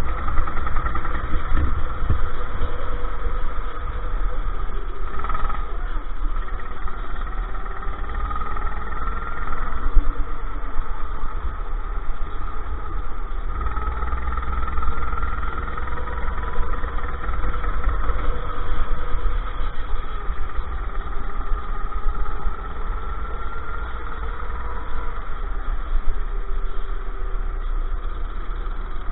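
Go-kart engine running hard on the track heard from on board, its pitch rising and falling as the kart accelerates out of corners and slows into them, with heavy wind and vibration rumble on the camera. Other karts' engines can be heard close by.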